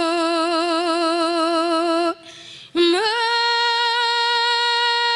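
A woman singing unaccompanied, holding long notes: first a note with a wide, even vibrato, then, after a quick breath about two seconds in, a higher note that slides up and is held steady with little vibrato.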